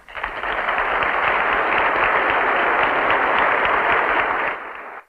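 Audience applauding: a loud, steady ovation that sets in suddenly and is cut off abruptly near the end.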